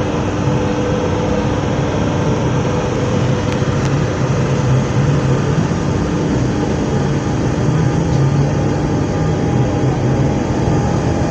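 SNCF Z 20500-series Z2N bilevel electric train standing at the platform, its onboard equipment giving a steady low hum with several held tones. One tone drops out near the end, and a higher one sets in during the second half.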